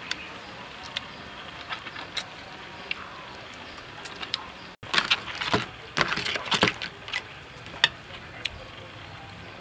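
Scattered sharp clicks and clinks, with a burst of rapid clattering between about five and seven seconds in.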